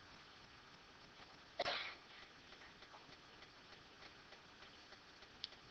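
A single short, breathy noise from a person about one and a half seconds in, over faint steady room hiss.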